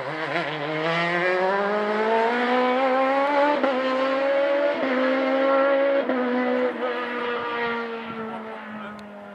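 Rally car engine accelerating hard uphill through the gears: the pitch climbs steeply, dips briefly at each of a few quick upshifts, then sags slowly as the sound fades with the car moving away.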